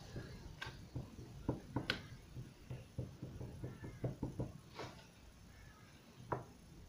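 Hands working soft clay in a silicone rose mould on a tabletop: a series of light knocks and taps, with a quick run of about seven taps a second near the middle.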